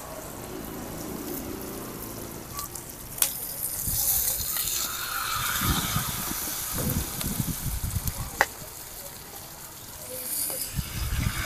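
Bánh xèo batter sizzling in hot oil as it is ladled into small clay pans over charcoal and shrimp are dropped in. Two sharp clinks of the metal ladle against the pans.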